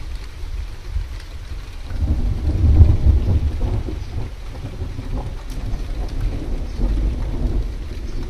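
Thunder rumbling low, swelling about two seconds in to its loudest near three seconds, then rolling on more quietly, with rain falling.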